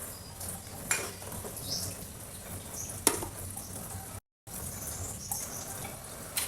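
Two sharp clicks of kitchen utensils, about two seconds apart, over a steady background hiss; the sound drops out briefly just after the middle.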